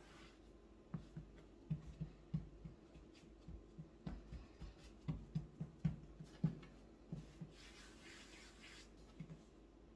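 Light, irregular knocks and taps of dough being worked by hand on a board for manti, two or three a second, with a brief soft rustle near the end.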